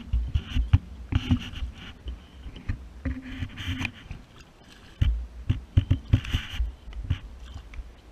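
Close-up handling noise: irregular scraping and rubbing in short bursts over soft low thumps, as the angler's hand and gear move next to the microphone.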